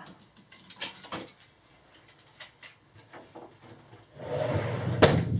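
Offscreen handling noise: a few light knocks and clicks, then about four seconds in a louder rustle ending in a sharp clack, as clothes on hangers are gathered and brought back.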